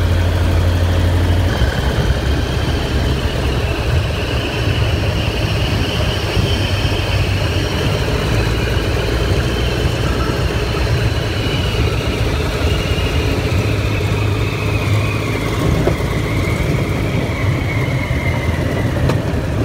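A 1929 biplane's air-cooled piston engine and propeller running steadily, with wind rushing over the open cockpit. A faint high whine slowly falls in pitch through the second half as the plane comes in to land.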